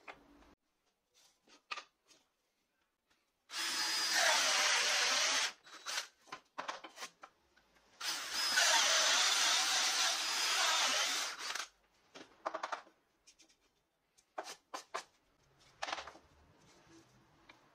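Power drill spinning a hole saw through plywood in two runs, about two seconds and then nearly four seconds long. Short knocks and rattles of the wood being handled fall between and after the runs.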